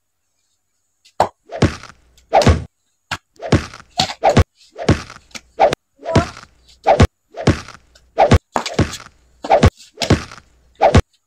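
A rapid series of hand blows and slaps landing on a person, about two a second, starting about a second in.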